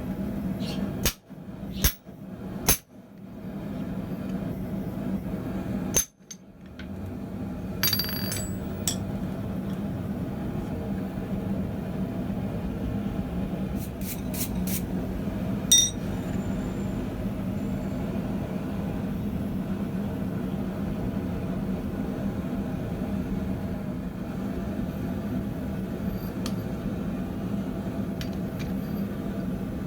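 A steady low hum under a handful of sharp metallic clinks and knocks of steel tools in a blacksmith's shop. A few come close together in the first three seconds, another six seconds in, more around eight seconds, and the loudest at about sixteen seconds.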